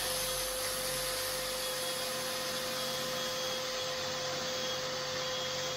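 Shop vacuum running steadily, extracting dust from a small rotary tool held on a seam in the fibreglass mould, with a steady high whine over the rush of air.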